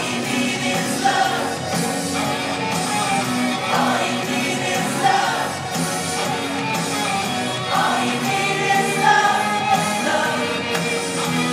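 A group of people singing a song along with rock or pop backing music.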